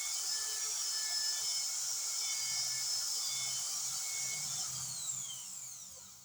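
Metal lathe running with a steady high-pitched whine over a hiss, then shut off near the end, its pitch falling and fading as the spindle coasts to a stop.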